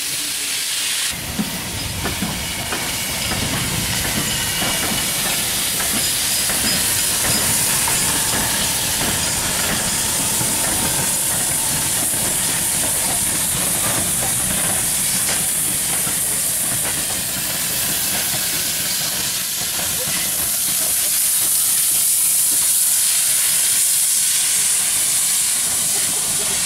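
LMS Jubilee class 4-6-0 steam locomotive 45596 Bahamas hissing steam as it moves slowly, over a low rumble from the engine, with the hiss growing a little louder about twenty seconds in.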